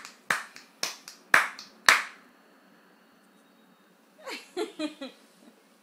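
Hands clapping a quick beat, about seven claps in the first two seconds, then stopping. Near the end, a few short voice sounds from a young child.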